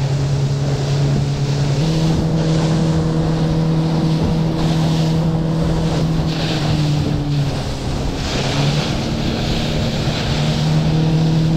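A fishing boat's motor running under way, with water rushing past the hull and wind on the microphone. The engine note rises about two seconds in, eases off in the middle, and picks up again near the end.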